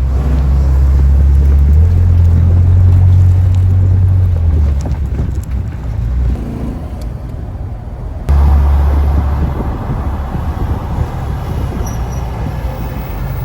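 Engine of a 1969 Ford Mustang running with a deep, low exhaust rumble. It steps up in level about two seconds in, drops back just before the halfway point, and surges again after about eight seconds.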